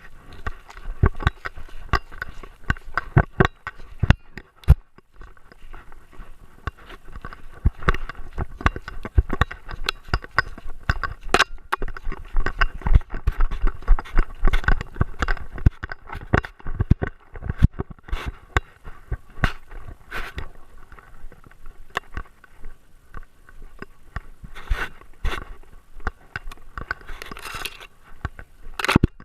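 Irregular knocks, rattles and scrapes of a GoPro Hero 3 Black in its housing, jostled about while strapped to a Great Dane, many sharp knocks a second with a low rumble underneath.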